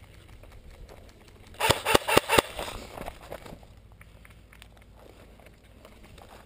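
Four sharp knocks in quick succession about a second and a half in, followed by faint scattered rustling and ticks.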